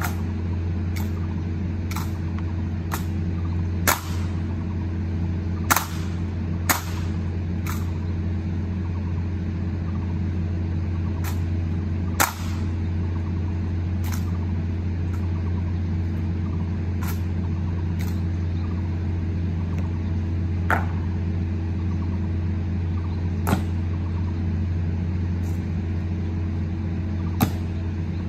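Honour-guard rifle drill: about fifteen sharp, single clacks at uneven intervals as the rifles are slapped, caught and grounded. They sound over a steady low hum.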